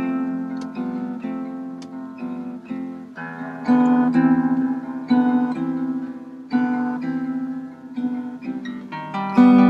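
Acoustic harp guitar played solo, fingerpicked: notes and chords are plucked and left to ring and fade, a new one every half second to a second or so.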